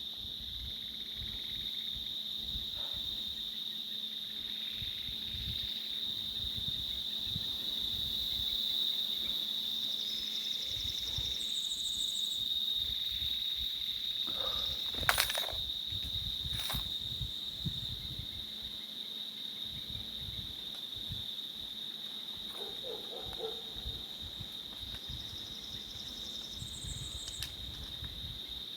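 Insects trilling in a steady, continuous high-pitched chorus, with a few short higher chirps and one sharp click in the middle.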